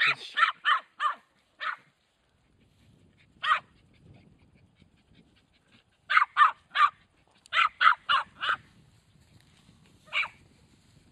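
Border Terrier barking in short, sharp yaps while chasing calves: a quick run of about five at the start, a single yap, then runs of three and four, and one more near the end.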